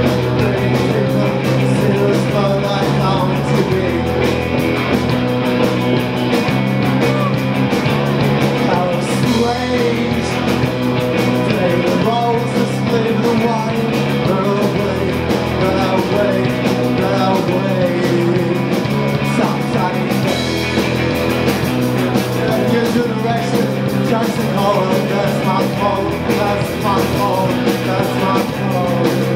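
Live rock band playing amplified electric guitars and drums at a steady, loud level.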